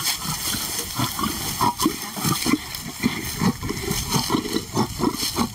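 Male lion growling in short, repeated rumbles over meat, about two or three a second: guarding the food from a lioness.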